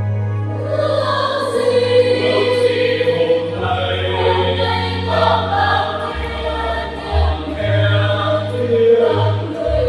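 Mixed church choir singing a Vietnamese Catholic responsorial psalm in parts, with keyboard accompaniment holding long bass notes underneath.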